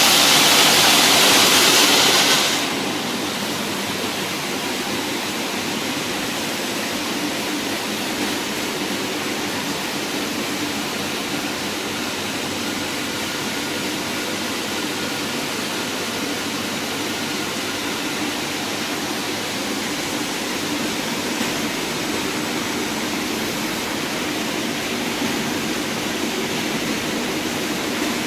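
Wood veneer calibrating sanding machine running with a steady, even rush of noise. It is louder and hissier for the first couple of seconds, then settles to a quieter steady run.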